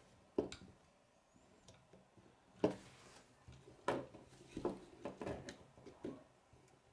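K'nex plastic parts clicking and knocking against each other and the wooden tabletop as a model is handled: about six sharp clicks at irregular intervals, loudest near the middle.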